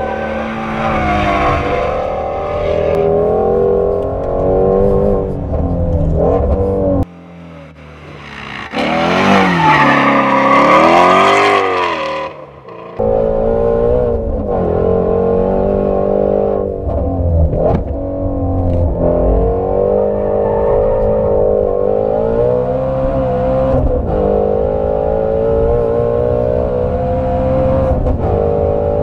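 Ford Shelby GT350R's 5.2-litre flat-plane-crank V8 driven hard on a track, revving up and dropping back with each gear change, heard mostly from inside the cabin. For several seconds in the middle the low rumble drops away and the engine note sweeps sharply up and down, loudest about ten seconds in.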